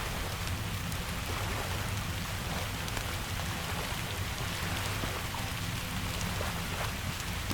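Steady rain, with scattered sharp crackles from a wood fire over a steady low rumble.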